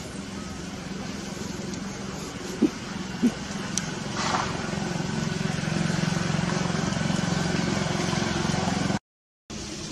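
A steady low motor hum, louder from about halfway through, with two soft thumps a third of the way in; it cuts off abruptly near the end.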